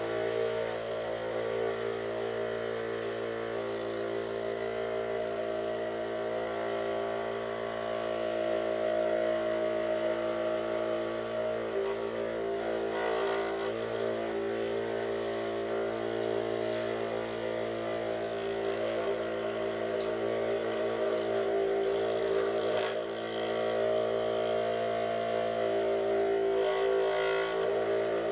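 Dremel Moto-Shop scroll saw running steadily, its reciprocating blade cutting a hand-fed piece of 5 mm plywood. One sharp click about three-quarters of the way through.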